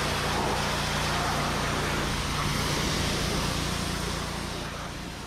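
Gas pressure washer with a Honda GX200 single-cylinder engine running steadily under the hiss of its high-pressure water jet spraying onto a tractor's bodywork, fading out near the end.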